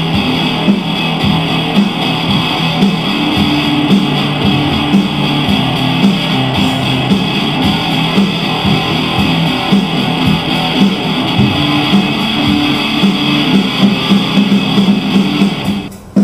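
Background music: a guitar playing a rhythmic, repeating figure, which drops away near the end.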